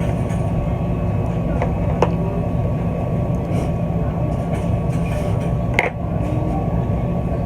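A steady low mechanical rumble, with two short sharp clicks, one about two seconds in and one near six seconds.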